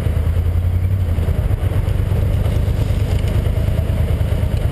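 1983 Yamaha XVZ12TK Venture's V4 engine running steadily as the motorcycle rides along a dirt trail.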